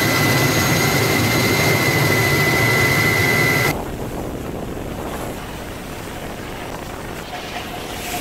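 Helicopter cabin noise: a steady high turbine whine over a low rumble, which cuts off abruptly a little under four seconds in. A much quieter, even rushing noise follows.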